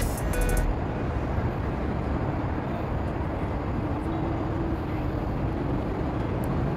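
Music cuts off less than a second in, leaving a steady low rumble of outdoor background noise.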